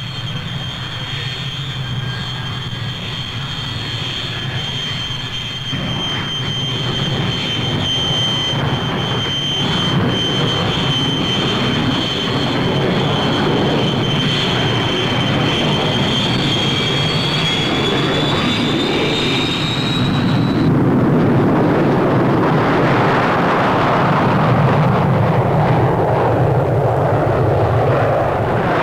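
Jet engines of the Supermarine 508, a pair of Rolls-Royce Avon turbojets, running under power as the aircraft taxis and starts its take-off run. A high, steady jet whine over a deep roar grows louder. The whine rises slightly in pitch and then cuts off suddenly about two-thirds of the way through, leaving the roar, which keeps building.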